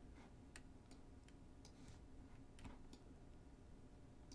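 Near silence: room tone with a few faint, scattered clicks from a computer mouse and keyboard.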